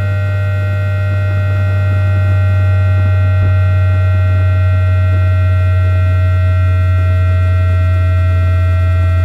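PWM switching sound of a JR East E2-1000 Series Shinkansen's 3-level IGBT VVVF inverter and traction motors, picked up electromagnetically by an inductor coil rather than a microphone. It is in asynchronous unipolar modulation during braking. A loud steady low hum sits under several steady whining tones, one of which drifts slowly upward in pitch.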